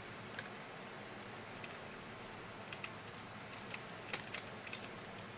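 Light, irregular clicks of a hand-held latch tool and the metal latch needles of a plastic-bed LK100 knitting machine as long stitches are twisted on the needles and the needle latches are flicked open. The clicks come singly or in quick pairs, more often in the second half.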